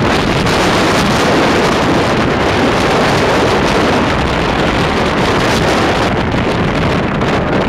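Strong wind blasting the microphone on a vessel under way at sea, a loud, steady rush over the sound of water washing along the barge's hull.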